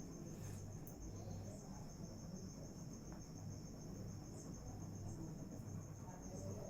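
An insect trilling: a steady, high-pitched, rapid even pulsing that runs on without a break, over a low steady hum, with a few faint soft clicks.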